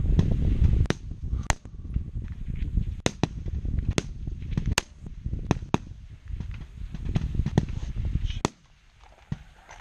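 Rifle shots from along a highpower firing line: about a dozen sharp cracks at irregular intervals, roughly half a second to a second apart. A low rumble underneath drops away about eight and a half seconds in.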